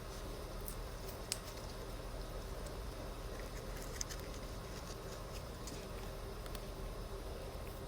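Faint scattered clicks and light scratching as the opened key fob and its coin battery are handled, over a steady low hum.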